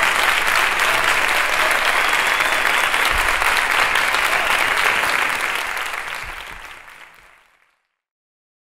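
Concert audience applauding, a dense steady clapping that fades away over about two seconds, starting some five seconds in.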